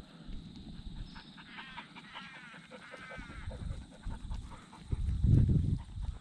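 Sheep bleating about a second and a half in, a wavering call lasting around two seconds. Low rumbling noise runs underneath and is loudest about five seconds in.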